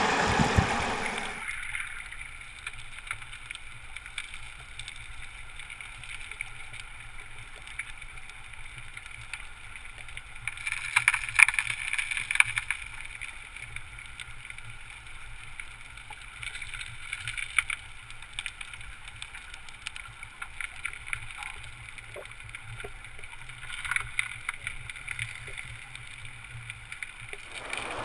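Muffled river water heard from underwater through a sealed camera housing: a steady dull rush with scattered crackles and clicks, which thicken about eleven seconds in and again near twenty-four seconds. A louder, fuller rush of water fades away in the first second or two.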